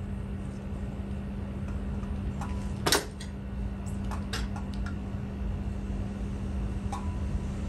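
A few small clicks and taps from handling wire connectors and a metal attic fan housing, with one sharp click about three seconds in, over a steady low hum and background rumble.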